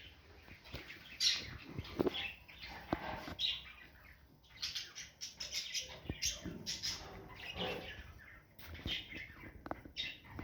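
Parrots chirping and squawking in short, irregular calls that overlap one another, with a few sharp clicks among them.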